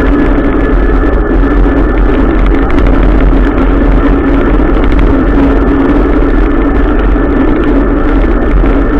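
Adventure motorcycle being ridden, its engine running at a steady pitch under a loud low rumble.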